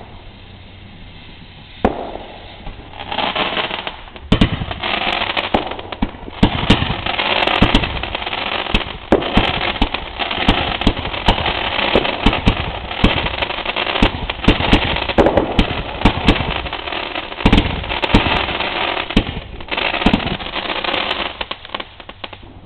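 Fireworks going off: a single sharp pop about two seconds in, then a long, dense run of rapid crackling bangs that stops shortly before the end.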